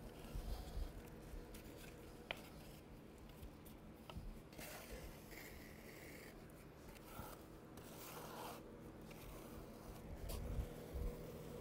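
Faint scraping and rubbing of a notched squeegee dragged through a wet urethane cement base coat on a concrete floor, with a few light clicks.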